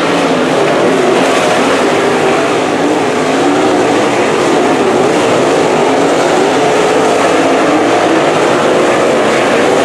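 Dirt late model V8 race engines running hard in a race on a dirt oval: a loud, continuous engine drone whose pitch rises and falls as the cars go through the corners.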